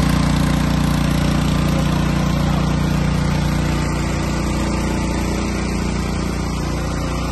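Portable power sprayer's small engine running steadily, driving its piston pump; an even, continuous engine note.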